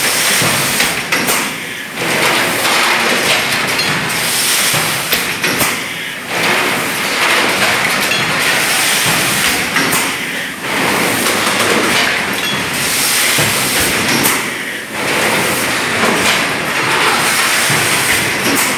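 Mineral water bottling line running: a loud, dense mechanical clatter that dips briefly about every four seconds.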